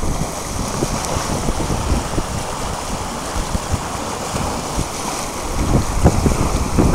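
Sea water rushing past in a strong current, with wind buffeting the microphone in uneven low gusts.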